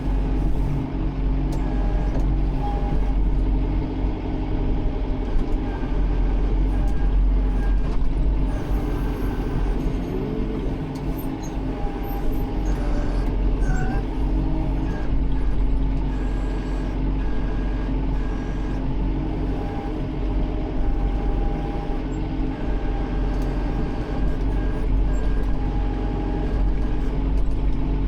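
Tractor engine running steadily, with a higher whine that comes and goes.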